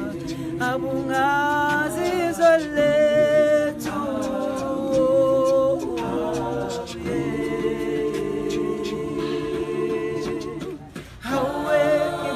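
A group of voices singing together a cappella, with long held notes. The singing drops out for a moment near the end, then comes back in.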